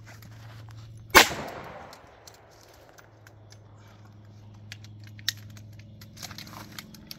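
A single .357 Magnum revolver shot about a second in, sharp and loud, dying away over about a second. A few faint clicks follow later.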